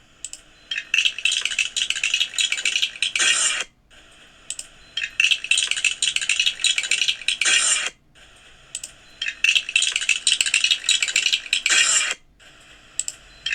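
Dense clinking rattle of small hard objects in three bursts of about three and a half seconds each, with short gaps between them. Each burst ends in a louder flurry.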